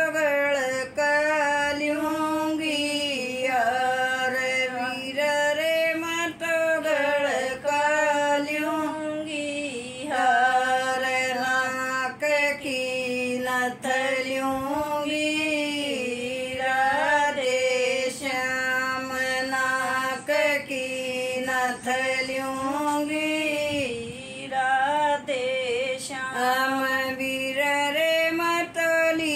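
A woman singing a folk song unaccompanied in one solo voice: long held notes that bend up and down in pitch, with short breaks for breath between phrases.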